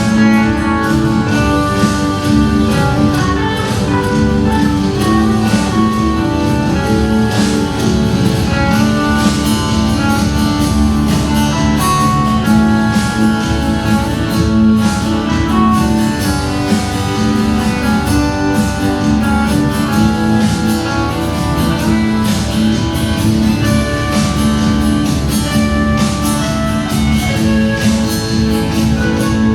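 Live band playing an instrumental passage, with guitar to the fore.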